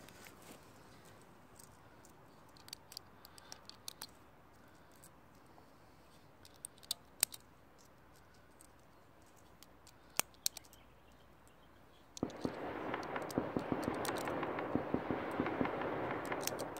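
Distant celebratory gunfire echoing across a valley: scattered single sharp shots, then about twelve seconds in a dense crackle of rapid shots sets in suddenly and keeps going.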